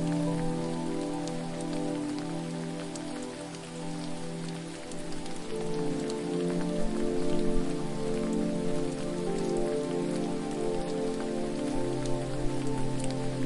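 Steady hiss and patter of falling water with small drip-like clicks, under soft ambient music of long held chords that change about five seconds in and again near the end.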